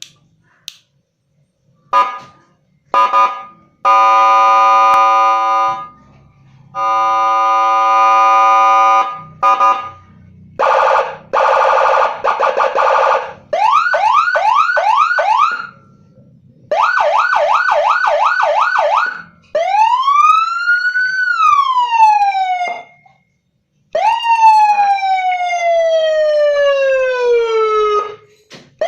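Senken 40-watt electronic siren module running through its tones: a few short blips, two steady horn-like blasts of about two seconds each, a fast warble, quick repeated rising yelps, a slow rise and fall, and a long falling wail.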